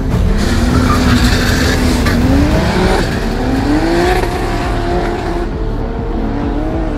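A drag car's engine accelerating hard down the strip from the launch. The pitch climbs, drops at a gear change about three seconds in and climbs again, with another shift near the end.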